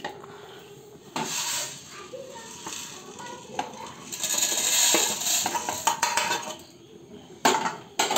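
A spoon stirring and scraping food around a cooking pan in uneven bursts, with a few sharp metal clinks, two of them near the end.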